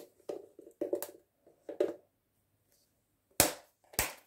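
Bread spice being shaken out of a plastic spice jar, with a few short rattling shakes in the first two seconds, then two sharp knocks about half a second apart near the end.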